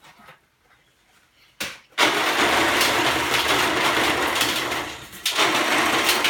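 Gravel pouring down a curled corrugated-sheet chute and spilling onto a gravel pile: a loud, steady rush of rattling stones that starts suddenly about two seconds in, dips briefly about a second before the end, then surges again.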